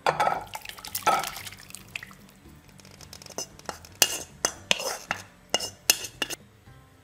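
Thick vegetable curry pouring and splashing from an aluminium pot into a ceramic bowl, twice in the first second and a half. Then a run of sharp clinks and scrapes as the tilted pot is knocked and scraped to empty the last pieces into the bowl.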